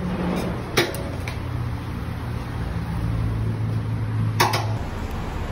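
Serving utensils clacking against bowls and containers: a sharp knock about a second in and a couple more near the end, over a steady low hum.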